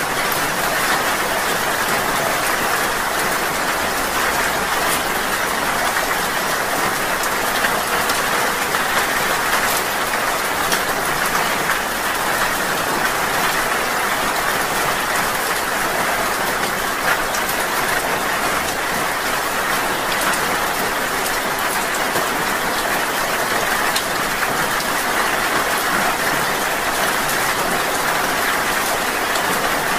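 Steady rain: an even hiss, with scattered single drops ticking through it.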